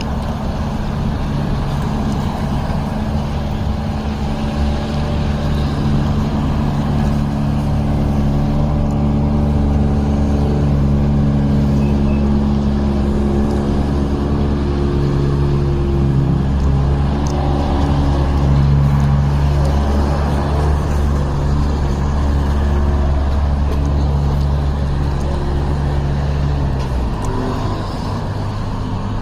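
Street vacuum sweeper running steadily, its engine and suction fan giving a loud, continuous low drone; the drone changes pitch a little near the end.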